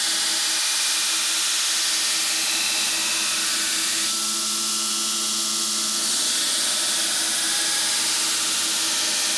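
2x72 belt grinder running with a steel knife blade pressed against the abrasive belt: a steady grinding hiss over the motor's hum, its tone shifting a little partway through. This is the bevel being ground on a bowie knife blade, the grind being pushed back up the blade at a slightly shallower angle.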